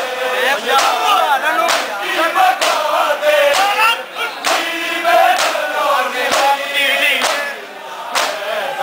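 Crowd of men chanting a Punjabi noha together, with sharp chest-beating slaps of matam landing in time about once a second.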